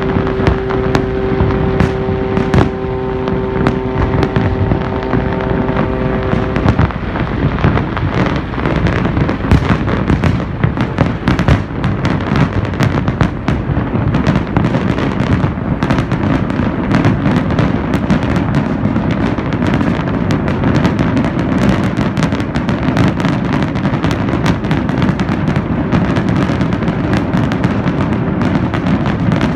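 Fireworks display: a dense, continuous barrage of bangs and crackles. A long steady tone is held over it for about the first seven seconds, then stops.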